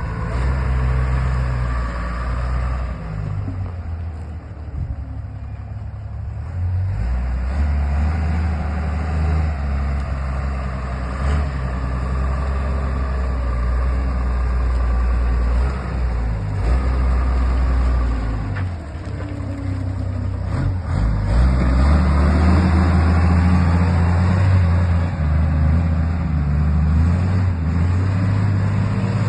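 Hamm GRW 10 roller's diesel engine running under load, a low drone that shifts in pitch and level as the machine works, easing off briefly about five seconds in and again about nineteen seconds in.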